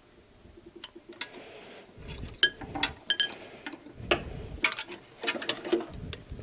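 Steel tools clicking and clinking against the timing-belt tensioner roller of a VAZ 8-valve engine as the roller is levered tight with drill bits in its holes and its nut is done up with a ring spanner. The clicks are sharp and irregular, about a dozen, some with a brief metallic ring, over dull handling knocks.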